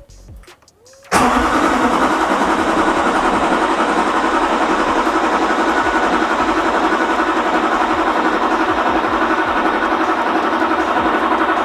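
A 6.6-litre Duramax V8 turbo-diesel being cranked over by its starter on its first start after a rebuild, with the fuel system just bled, and not yet catching. The cranking starts suddenly about a second in and carries on steadily.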